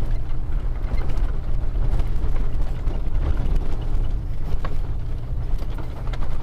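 Lifted Ford Econoline E350 van crawling over rough ground: its V10 engine running low and steady under many scattered clicks, rattles and creaks from the body and suspension.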